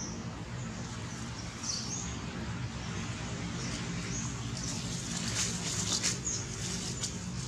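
Dry leaf litter rustling and crackling under scuffling long-tailed macaques, thickest in the second half, with short high chirps every second or two over a steady low hum.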